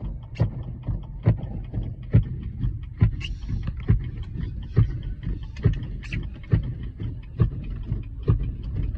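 Steady low rumble inside a moving vehicle, with a sharp knock repeating about once a second.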